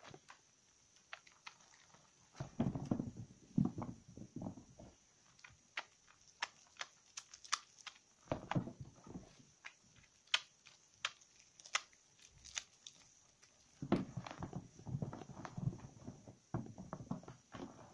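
Wet squelching of soaked soap and thick lather squeezed by hands in several bouts, with sharp wet clicks and bubble pops between the squeezes.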